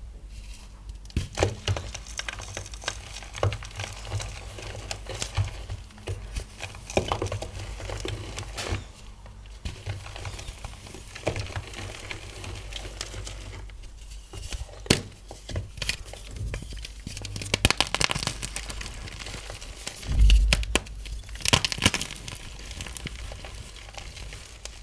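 Gym chalk blocks being crushed and crumbled by hand: irregular crunches and crackles, with a low thump and louder crunches about twenty seconds in.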